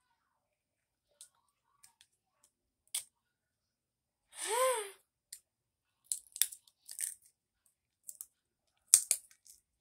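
Close-up mouth noises of someone eating: scattered wet clicks and smacks from chewing and finger-licking. About halfway through comes a short hummed "mm" that rises and falls in pitch.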